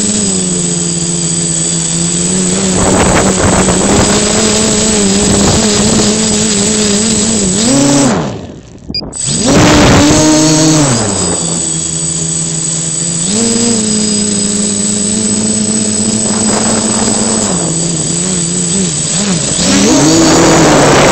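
H550 hexacopter's electric motors and propellers whining, heard from the camera on board. The pitch holds, then sags and surges as the throttle changes. About eight seconds in the motors nearly cut out for a second, then spin back up hard.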